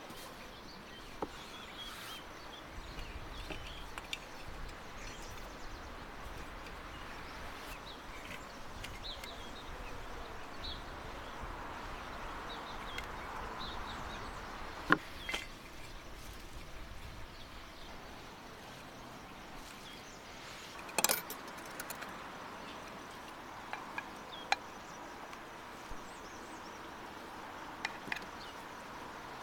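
Steady outdoor background with scattered faint bird chirps, and a few sharp clicks and clinks of food and utensils being handled in stainless steel bowls, the loudest cluster about two-thirds of the way through.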